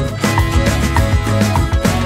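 Lively Latin dance music in a salsa style, with a steady beat and guitar.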